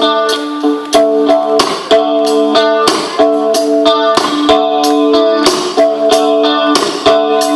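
A live rock band playing on stage: guitar chords held and changed about once a second over a steady, quick beat.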